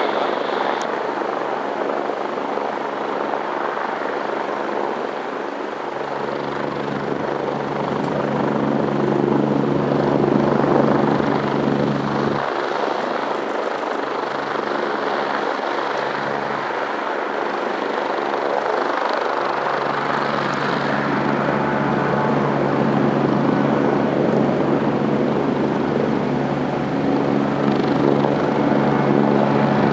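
Mitsubishi MRJ regional jet's twin turbofan engines at high power as the aircraft climbs out after takeoff: a loud, steady jet noise that swells a little about ten seconds in and again near the end.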